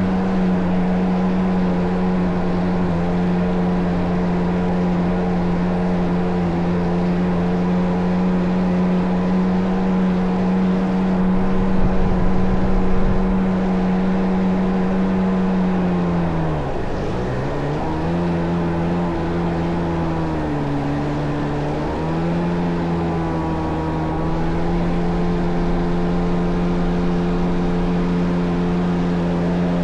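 Two-stroke engine of a Kawasaki JS550 jet ski with a 650 engine swap, running at a steady cruise. About halfway through the revs drop sharply as the throttle comes off, then climb back, dip once more and settle again at cruising speed. A louder low rumble comes briefly about a third of the way in.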